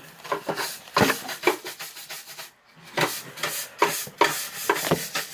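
Irregular rubbing and scraping with small knocks, in short uneven bursts.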